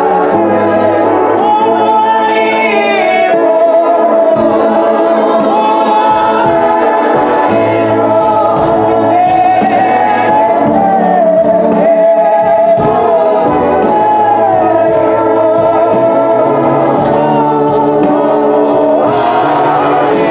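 A gospel choir sings a song with held, sliding notes over a bass line and a light steady beat.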